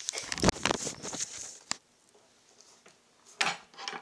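Handling noise from a camera being picked up and moved by hand: a quick run of knocks, clicks and rubbing over the first couple of seconds, a short lull, then one more brief scuffle near the end.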